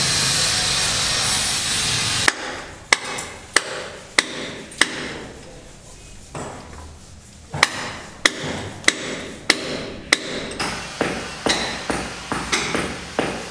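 A power tool runs with a steady noise and stops about two seconds in. Then hand-hammer blows follow, about one every half second or so, pause for a couple of seconds, then resume and quicken to about two strikes a second near the end.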